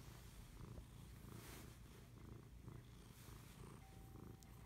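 Domestic cat purring steadily and faintly while being petted.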